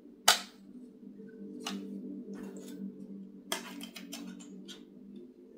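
Plastic CD jewel cases clicking and knocking as they are handled and opened: one sharp click a fraction of a second in, a cluster of clicks about three and a half seconds in and a few softer ones, over a faint low hum.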